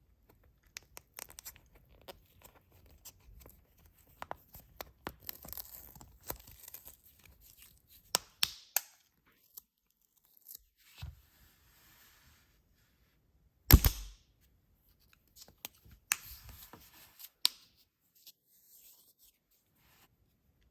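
Toy packaging being torn open and handled: stretches of tearing and rustling broken by scattered clicks and taps, with one loud sharp snap about two-thirds of the way through.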